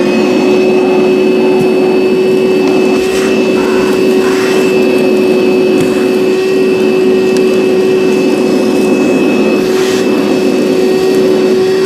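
DeWalt DCV580H cordless 2-gallon wet/dry vacuum running steadily at full speed, a constant motor whine over rushing air, as it sucks up a mix of sawdust and leaves through its hose.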